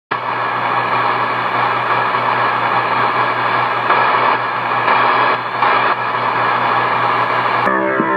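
Radio static used as a score element: a steady hiss with a low hum and faint steady tones under it, cutting in abruptly at the start. Near the end it drops out and a sliding, pitch-bending tone takes over.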